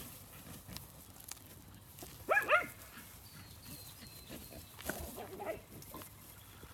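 A working dog barking twice in quick succession, with a fainter bark or yelp later on.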